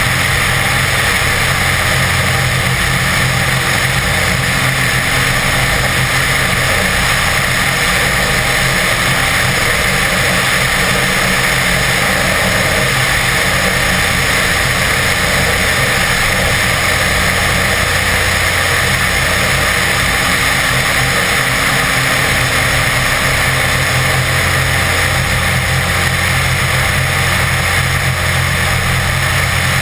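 BD-4 homebuilt light aircraft's piston engine and propeller running steadily at high power through the takeoff roll, liftoff and climb, mixed with a constant rush of air over the wing-mounted camera.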